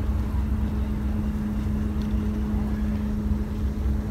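Boat motor running steadily: a constant, even hum over a low rumble.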